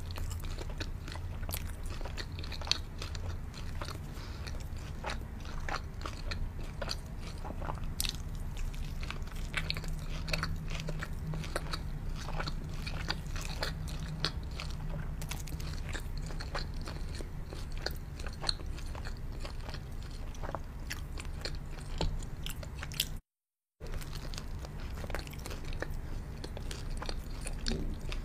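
Close-miked biting and chewing of a shawarma wrap, with many small sharp crunches and wet mouth clicks over a steady low hum. The sound cuts out completely for about half a second some five seconds before the end.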